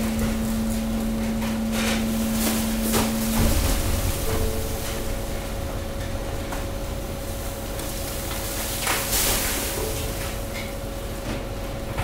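A 190-bar hydraulic waste press humming steadily. One of its tones cuts off with a low thump about three and a half seconds in, while bags of industrial waste land in the steel chamber with scattered knocks, rustles and a short hiss later on.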